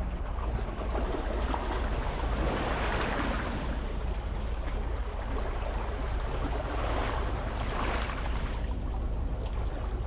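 Small sea waves washing onto a rocky, pebbly shore, swelling twice as they come in, over a steady low rumble of wind on the microphone.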